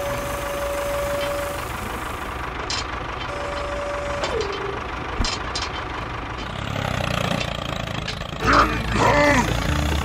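Heavy truck engine sound effect running steadily, with two long steady beeps, the second sliding down in pitch as it ends. Near the end, a short voice-like cry rises over a deeper rumble.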